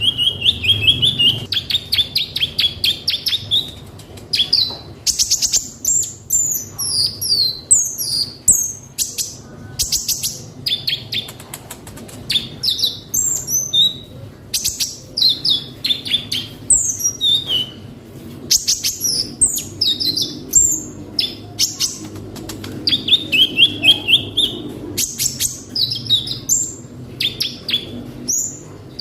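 Kolibri ninja sunbird singing in a long, busy run of high chirps, fast trills and quick whistled phrases, firing off the learned song phrases that keepers call isian.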